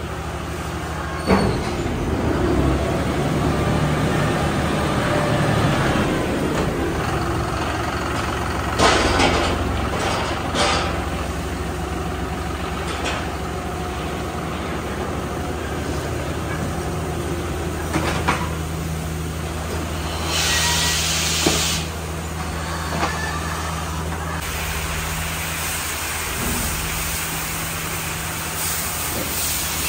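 Milking parlour machinery running with a steady low hum, broken by several sharp knocks and two bursts of hissing, one about twenty seconds in and another starting near the end.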